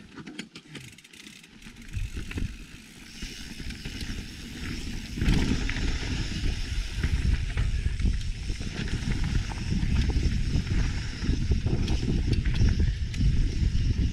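Mountain bike rolling fast down a dirt trail: tyre noise with frequent clicks and rattles over bumps, and wind buffeting the microphone. It gets much louder about five seconds in.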